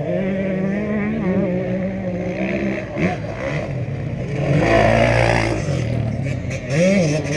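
Off-road race motorcycle engines running on a dirt course. A steady engine note comes from up the track, then about four and a half seconds in a bike passes close by, louder and fuller. Near the end there is a short rising rev.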